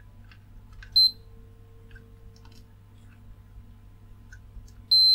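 Digital multimeter beeping twice, each a short high beep, about a second in and again near the end, with faint ticks of the probe tips on the circuit board between. The beep is the meter's signal of a low-resistance path between the probes while checking for a short.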